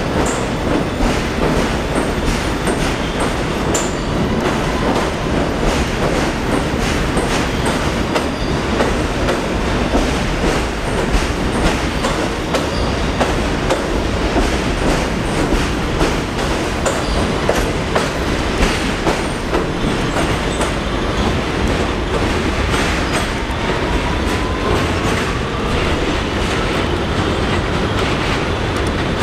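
Kawasaki R211A subway train running along the platform. Its wheels click rapidly and irregularly over the rail joints above a steady rumble, and a faint rising whine comes in about three-quarters of the way through.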